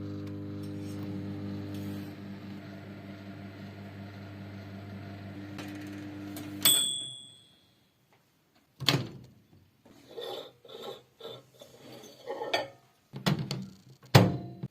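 Microwave oven running with a steady electrical hum, stopping about seven seconds in with a single high beep. After a short pause come a series of clicks and knocks, with one sharp knock near the end.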